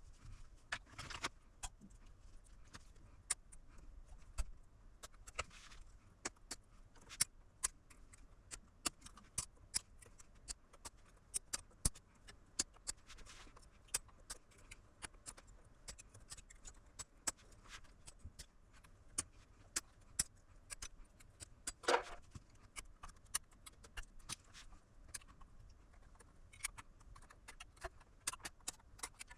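Irregular light clicks and clatter of tools and small hard parts being handled while working on a portable power station's battery pack, with one longer scrape about three-quarters of the way through.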